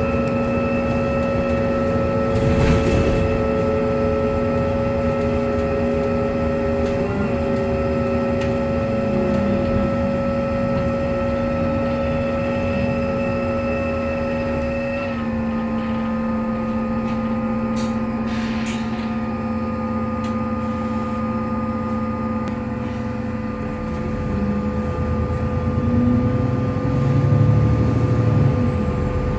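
Alexander Dennis Enviro 400MMC double-decker bus running, with a loud whirring whine of several steady tones over its engine and road rumble. The whine's pitch drops a step about halfway through.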